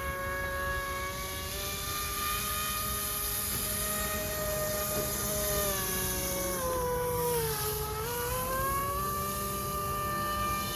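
RC airboat's brushless electric motor (Roxxy 36-42, 930 kV, on a 4S lipo) and three-blade air propeller in its prop ring, whining at a steady pitch. The pitch sinks briefly about seven seconds in, then climbs back to where it was.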